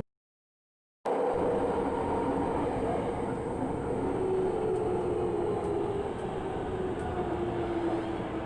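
After about a second of dead silence, a Tokyo Metro 08 series electric train running and decelerating: its motor whine falls slowly in pitch over steady running noise.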